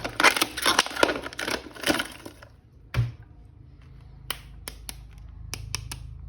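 Handling of a plastic action figure: rapid scraping and rattling, then a thump about three seconds in, followed by a few sharp clicks.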